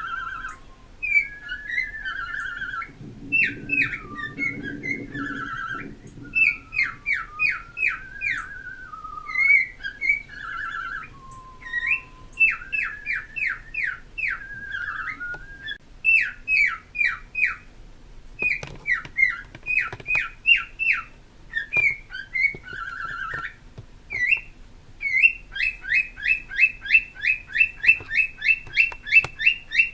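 Pet parrots whistling and chirping in a long, busy run of short rising whistles and chirps, ending in a fast series of evenly repeated chirps.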